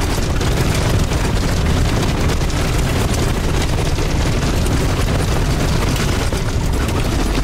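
Loud, steady road noise from inside the cabin of a Toyota four-wheel-drive on a rough dirt road: a deep rumble of engine and tyres on gravel, with constant rattling of the body over the bumps.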